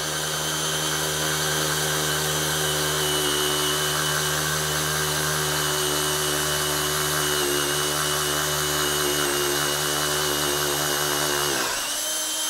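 Cordless drill running steadily as its bit drills out an epoxied plug from a valve hole in a dirt bike wheel rim. A little before the end the sound changes, its lower hum dropping away and the level dipping slightly.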